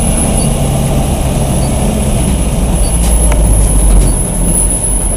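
Dump truck's engine running steadily under load while it pushes snow with its front plow, a low rumble heard from inside the cab.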